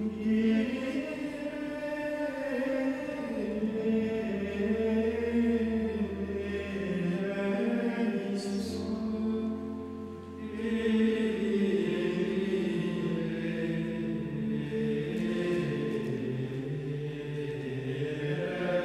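A choir chanting a slow, sustained melody in a large stone church, with a short break between phrases about ten seconds in.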